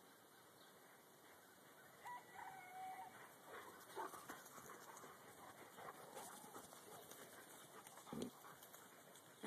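Faint outdoor quiet broken about two seconds in by a short, high-pitched dog whine lasting under a second, then scattered faint rustling and clicks, and a single low thump near the end.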